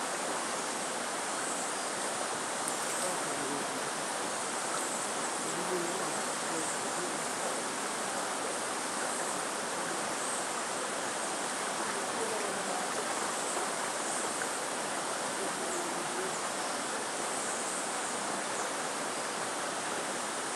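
Steady, even rush of running water, with no distinct events.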